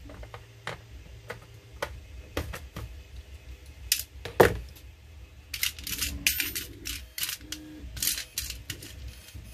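Small metal screws clicking and rattling in a plastic compartment organizer box, with hand tools picked up and set down on a cutting mat: a string of irregular clicks and taps, the sharpest knock about four and a half seconds in.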